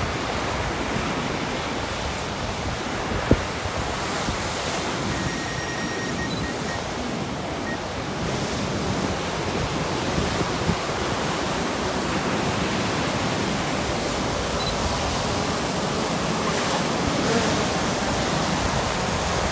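Surf breaking on the beach and wind buffeting the microphone, a hectic, steady rush of noise. A single sharp click comes about three seconds in.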